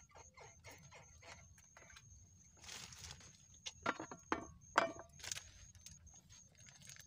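Wet plastic bag being handled, rustling and crinkling, with the loudest sharp crackles about four to five seconds in.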